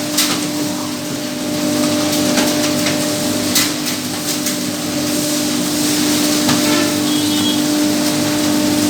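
CNC router spindle running at a steady pitch while its bit carves a wooden board, with a constant hiss of cutting and a few sharp ticks.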